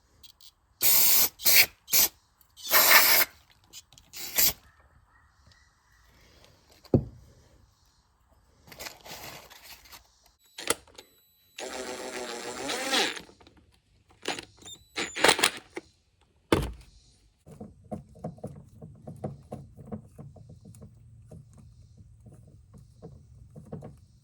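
Short loud hissing blasts used to clean small carburetor parts, five in quick succession early on and more later, with clicks and knocks of the parts being handled. A low steady hum with a light rattle comes in about two thirds of the way through.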